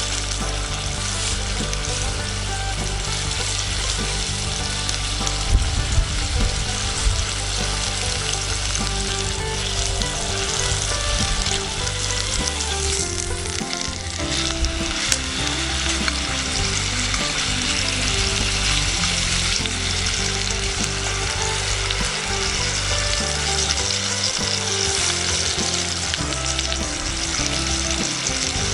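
Hamburg steak patty sizzling and frying in a cast-iron skillet, a steady sizzle with a few sharp pops and spits.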